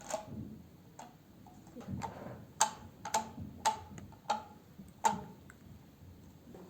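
A rubber band stretched over a cup being plucked, about eight sharp twangs at uneven intervals, each with a short ring.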